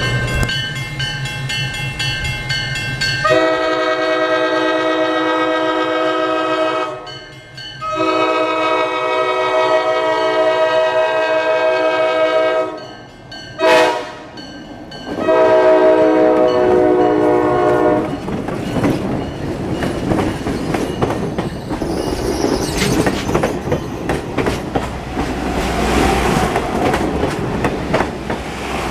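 Diesel locomotive's multi-chime air horn blowing two long blasts, a short one and a final long one, the standard signal for a grade crossing. The passenger train then rumbles close past with its wheels clacking over the rail joints.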